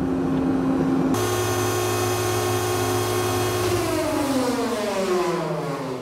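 Bulk carrier's deck crane machinery running with a steady whine. About a second in it steps up to a fuller, noisier sound, and from just under four seconds in its pitch falls steadily.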